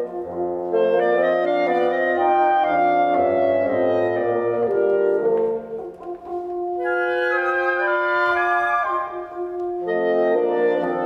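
Chamber wind ensemble of flute, oboes, clarinets, horns and bassoons playing a slow, songlike movement: a clarinet to the fore over held horn and bassoon chords. The playing thins to a brief lull about halfway through, then the full chord comes back.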